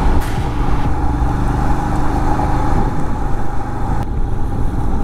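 Royal Enfield motorcycle running at road speed, with strong wind rushing over the microphone.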